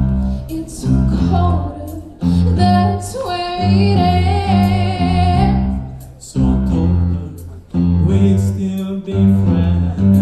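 Music: a song with a singing voice over instruments and a steady run of low notes. The voice holds one long, wavering note in the middle.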